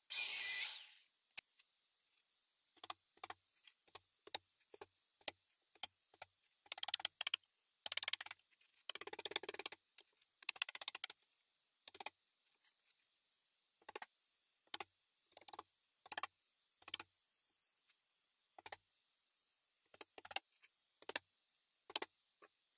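Hand chisel paring wood out of a drilled recess in a spalted maple slab: short scraping cuts and clicks, about one a second, with a run of longer scrapes partway through. A short loud burst of noise comes in the first second.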